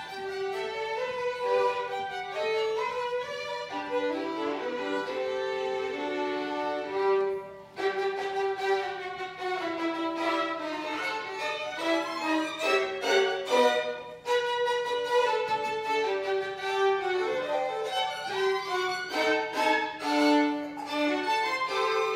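Two violins playing a duet, quick bowed notes moving together, with a brief break about eight seconds in and another about fourteen seconds in.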